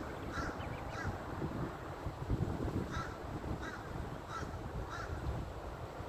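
Crows giving short single caws, about six scattered through, over a steady low rumble.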